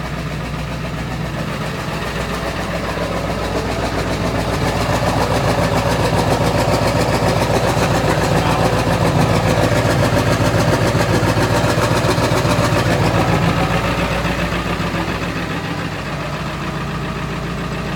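Ford 7.3-litre Powerstroke V8 turbodiesel of a 2001 F-350 idling shortly after a cold start. It grows louder for several seconds in the middle, then settles back.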